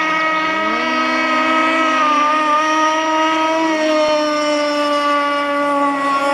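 Radio-controlled racing powerboats running at speed, giving a steady high engine note with several overtones. A second note climbs in pitch about half a second in and again near four seconds in as a boat speeds up.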